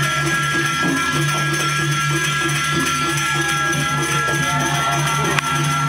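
Balinese gamelan music: sustained ringing metallic tones over a repeating, pulsing low figure. A single sharp click sounds near the end.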